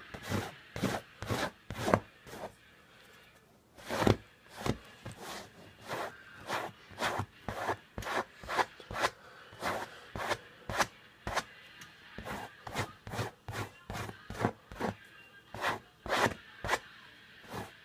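Large knife blade being stropped on a leather couch arm: quick repeated strokes of steel rubbing over leather, about two a second, with a short pause a little over two seconds in.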